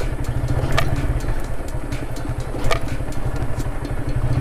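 A TVS Apache motorcycle's single-cylinder engine running steadily as it is ridden on a rough off-road track. Two sharp clicks come through, about a second in and again near three seconds.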